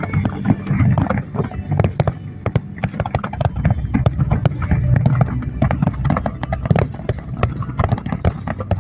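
Fireworks display: a dense, irregular barrage of sharp bangs and crackles, several a second, over a steady low rumble of booms.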